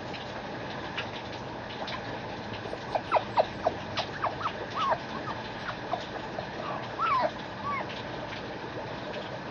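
Shiba Inu puppy giving a run of short, high whimpering yips that bend up and down in pitch, about a dozen from about three seconds in until near the end, over a steady background hum.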